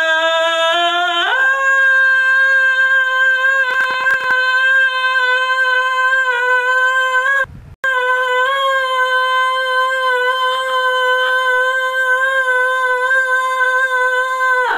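A voice holding a long, steady high note, a sung howl, stepping up in pitch about a second in. It breaks once for a breath about halfway, then holds the same note again until it cuts off at the end.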